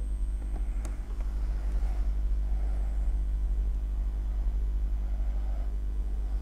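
Steady low background rumble, with one sharp tap about a second in as a smartphone is set down on a wooden desk.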